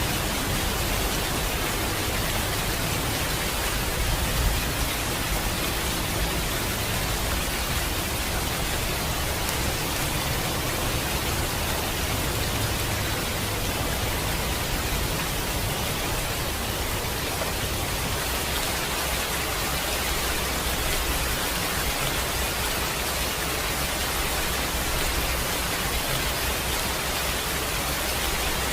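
Steady rain falling, an even hiss of drops with no thunder or distinct drips standing out.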